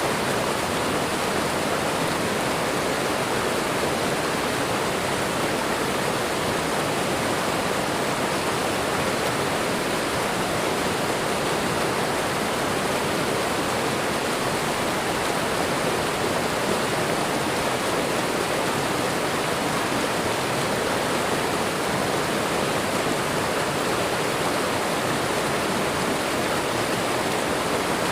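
Waterfall and running water: a steady, unbroken rush of falling water.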